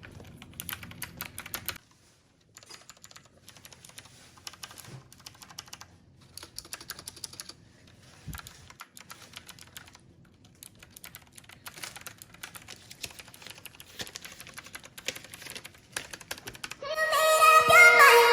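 Typing on a Moffi Candy M mechanical keyboard with clicky blue switches: a run of quick key clicks, with a brief pause about two seconds in. Music comes in near the end.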